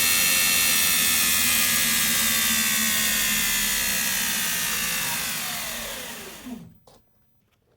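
Belt grinder with a 120 grit belt running steadily, then switched off: its whine slides down in pitch as it spins down and stops about seven seconds in.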